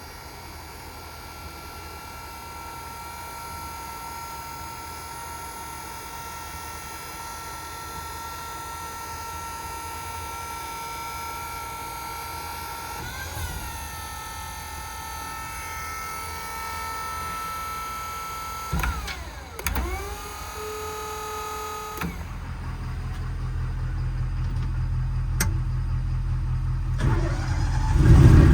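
Steady whine of a crane's electric-over-hydraulic pump, which sweeps in pitch and stops about two-thirds of the way through. Then an engine starts with a sudden low, steady drone that grows louder toward the end.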